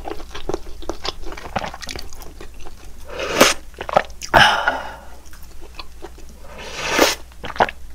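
Close-up eating sounds of ramen: chewing with quick mouth clicks, and two longer slurps that swell in loudness, a little past three seconds in and about seven seconds in.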